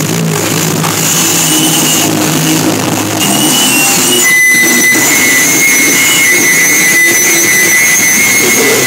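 Loud live band music, heavily distorted and noisy, with steady low notes at first. A steady high-pitched tone comes in about four seconds in and holds over the noise.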